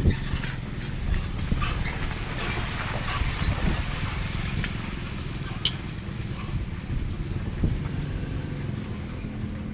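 Steady low engine hum with several sharp metallic clinks, the loudest about halfway through.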